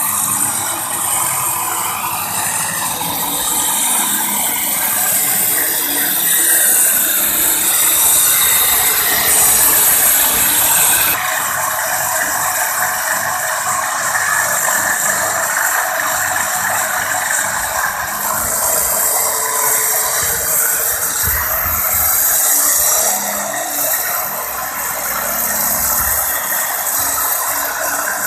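Loud, steady machinery noise with no clear pitch.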